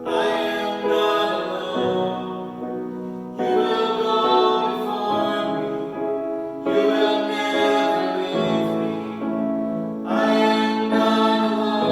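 Offertory church music with singing: long held phrases, each starting afresh about every three and a half seconds.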